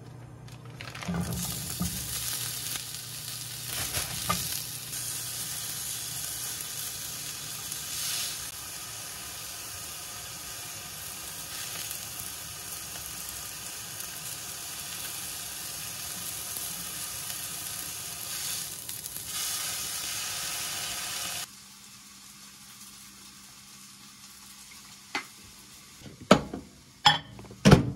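Small patties and a slice of ham sizzling as they fry in a nonstick frying pan. The sizzling cuts off suddenly about 21 seconds in, and near the end come a few sharp clicks and knocks.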